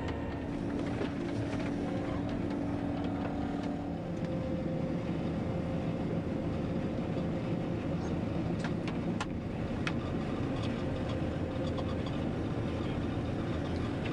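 Heavy farm machinery running steadily. The pitch of its drone shifts about four seconds in, and a few sharp ticks come near the middle.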